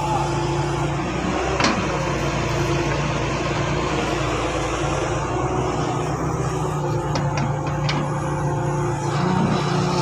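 Diesel engines of an excavator and bulldozer running steadily under load, with one sharp knock about two seconds in and a quick run of clicks around seven to eight seconds in.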